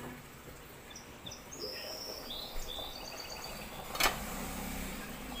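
Birds chirping, short high whistled calls, then a single sharp metallic clink of the glass pot lid about four seconds in as the pot is uncovered, followed by a steady low hum.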